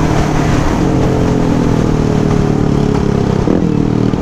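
Suzuki DR-Z400 supermoto's single-cylinder four-stroke engine running under way, its pitch easing slowly down, with a brief change about three and a half seconds in before it holds steady, over a steady rush of noise.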